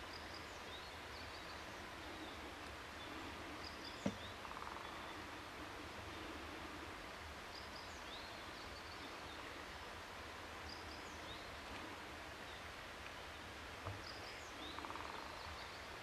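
Faint outdoor ambience: a steady hiss with small birds chirping now and then, and a sharp click about four seconds in and another near the end.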